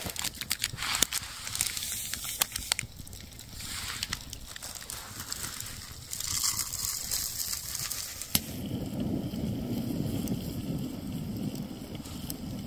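Campfire crackling, with sharp pops in the first few seconds; from about eight seconds in, a steady low rushing sound takes over.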